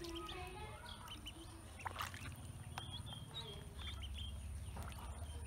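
Ducklings peeping: short high cheeps, coming regularly about three a second from around three seconds in, over a steady low hum.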